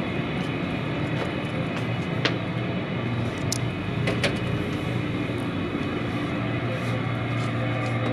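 Steady drone of a car ferry's engines and ship machinery heard inside the passenger deck, a low hum made of several steady tones. Sharp clicks about two and four seconds in as a glass cabin door's lever handle is worked and the door opened.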